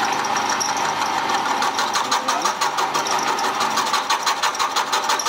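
Milling machine running, its cutter taking a light finishing cut of about 0.3 mm in a metal block. From about two seconds in the cutting turns into a rapid, even pulsing as the cutter's teeth bite.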